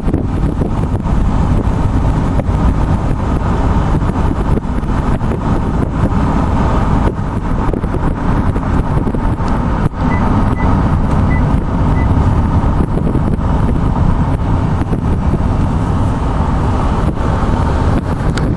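Steady low rumble of a vehicle in motion, heavy in the low end, with a few faint short high beeps about two-thirds of the way through.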